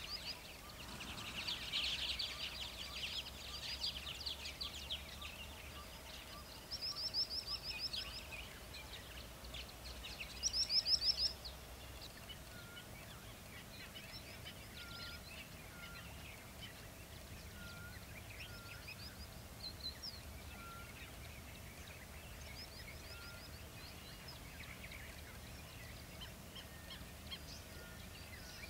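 Several wild birds calling together. There is a chattering burst in the first few seconds, then two loud rapid trills about seven and ten seconds in, which are the loudest sounds. Short soft whistled notes repeat throughout.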